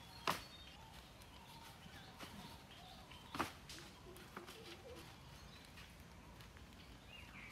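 A person moving about on the forest floor inside a small bamboo-walled hut: soft footsteps and a few sharp knocks or snaps, the loudest just after the start and another about three and a half seconds in. Faint bird chirps come in near the end.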